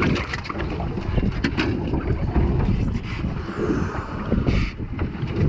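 Wind buffeting the microphone on an open boat, a steady low rumble, with a few light taps and knocks scattered through it.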